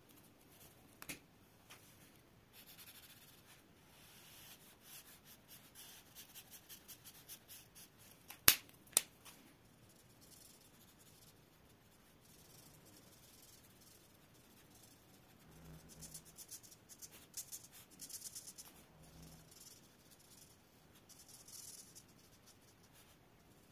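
Felt-tip marker scratching across paper in runs of short back-and-forth colouring strokes. About eight and a half seconds in, two sharp clicks half a second apart are the loudest sounds.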